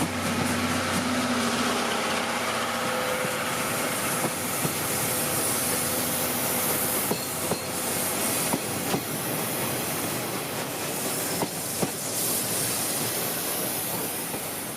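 Steam-hauled train passing on the track: a steady hiss with wheels clicking over the rail joints every so often. The sound cuts off suddenly near the end.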